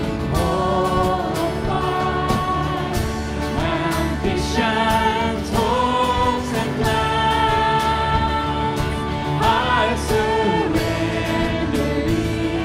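Christian worship song: sung voices holding long, gliding notes over instrumental accompaniment with a steady beat.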